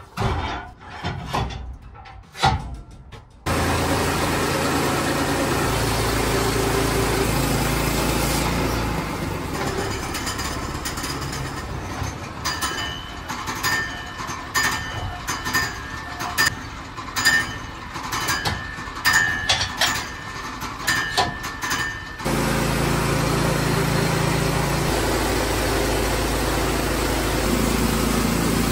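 Woodland Mills HM122 portable bandsaw mill's gas engine running steadily while the band blade saws through a black spruce log. A few thumps come before the mill sound starts suddenly, and there is a stretch of irregular knocking and clatter over a quieter run in the middle.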